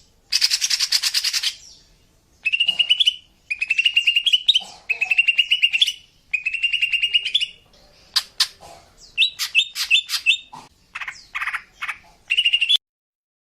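Female greater green leafbird (cucak ijo) calling. It opens with a harsh rasping burst, then gives a run of rapid, buzzy trilled phrases about a second long each, a few sharp clicks and more chattering notes, and cuts off suddenly near the end.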